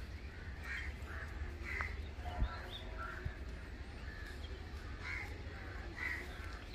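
Birds calling outdoors in short calls every second or so, with one light knock about two and a half seconds in.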